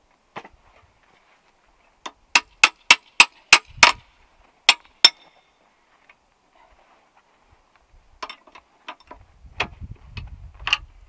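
Sharp metal-on-metal taps on a snowmobile's steel ski and its fittings: a quick run of about eight, roughly three a second, then a few lighter clinks and knocks as the parts are handled.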